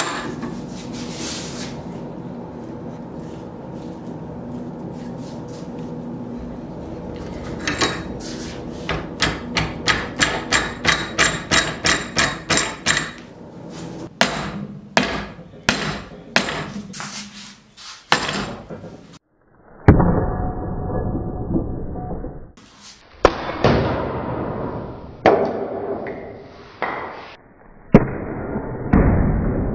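Workshop knocking on wood clamped in a steel bench vise. A steady hum comes first, then a run of evenly spaced sharp knocks, about two to three a second, followed by irregular, heavier knocks.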